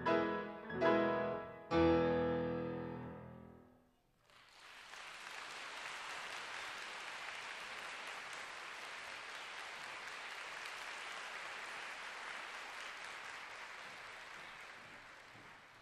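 Two grand pianos strike the closing chords of a piece, the last chord ringing and dying away over about two seconds. Then the audience applauds steadily, the clapping thinning near the end.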